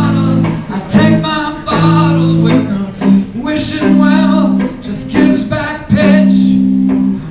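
Live band playing a song: a man singing over guitars and upright bass, with low sustained chords changing about once a second.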